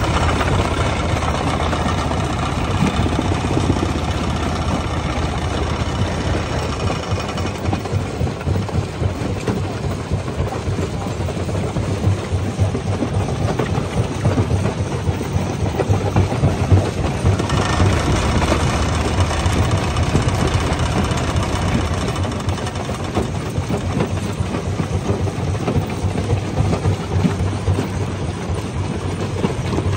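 Jaw crusher running and crushing rock, a continuous dense run of rapid knocks and crunching stone over a steady machine drone.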